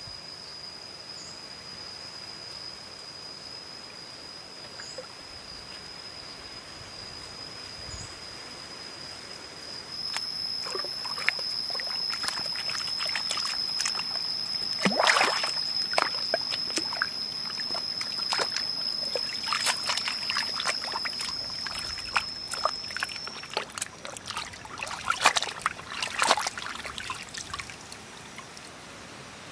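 Raw beef ribs being washed by hand in a shallow stream: water sloshing and splashing, starting about a third of the way in, with louder splashes around the middle and again near the end. A steady high-pitched tone sounds throughout and stops about two-thirds of the way through.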